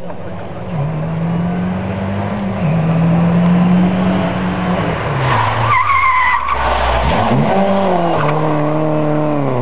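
Rally car engine driven hard, its revs rising and falling, with a brief tyre squeal about six seconds in as the car slides through a corner. The engine then pulls away, revs climbing and dropping several times.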